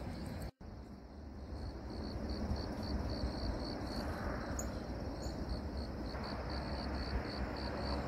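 A cricket chirping in an even rhythm of about three short chirps a second, over a steady background hiss, after a brief drop-out in the sound near the start.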